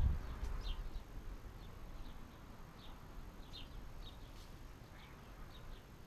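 Garden birds chirping: short, high, falling chirps, roughly two a second, with a brief low rumble of wind on the microphone at the very start.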